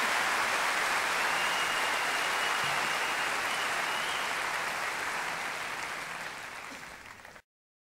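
Audience applauding: a dense, even clapping that slowly fades, then cuts off abruptly near the end.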